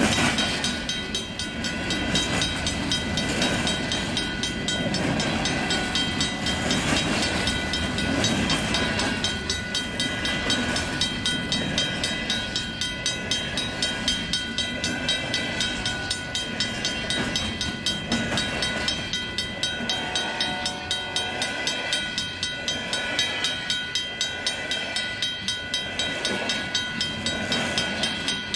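Freight train rolling past, its wheels clicking in a regular rhythm over the rail joints, with a steady high-pitched ringing over the rumble.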